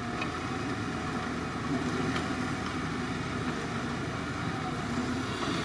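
Excavator's engine running steadily, with a couple of faint clicks.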